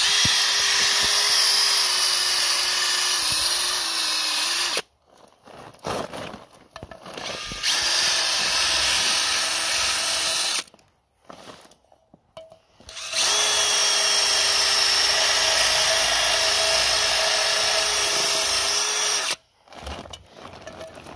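Cordless drill spinning a wire wheel brush against a cast-alloy motorcycle wheel's tyre-bead seat, scouring off the rough corrosion that was letting air leak past the bead. It runs in three bursts of roughly five, three and six seconds with short pauses between, a steady motor hum under a harsh scratching hiss.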